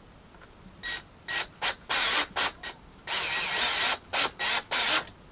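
Power drill run in a series of short trigger bursts, with one longer run of about a second in the middle, as a blind bracket is fixed.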